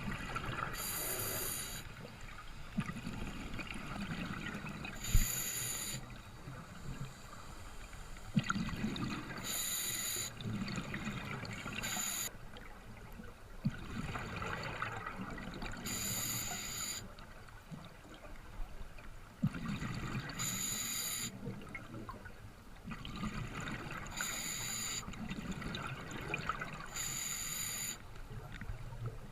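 Seawater sloshing and lapping in the wind, with a high-pitched sound about a second long recurring every few seconds.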